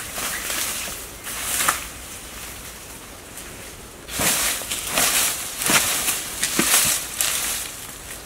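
Dry leaf litter and brittle plant debris crunching and rustling in uneven bursts, with crackly snaps. The sound is heaviest over the second half.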